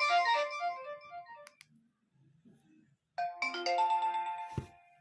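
Nokia 2600 mobile phone playing polyphonic ringtone melodies through its loudspeaker: a short chiming phrase that ends about two seconds in, then after a pause another melody starts. Near the end there is a single knock.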